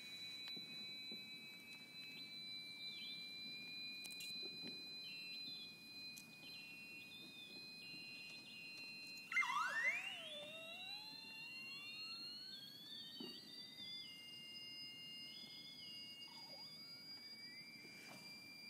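Steady, thin high electronic-sounding tones from a sound installation. About halfway through they drop suddenly in pitch in a brief loud burst, then several tones glide slowly back up and settle into steady tones again.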